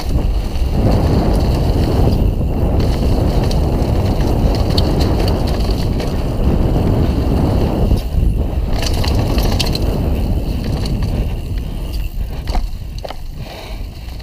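Mondraker Dune RR mountain bike ridden fast downhill: the tyres roll over dry leaves and dirt with a steady noise and rattling, and clatter over the wooden slats of a small bridge about eight seconds in.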